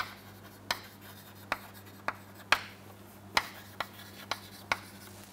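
Chalk writing on a chalkboard: a run of sharp chalk taps, a little under two a second, with faint scratching strokes between them.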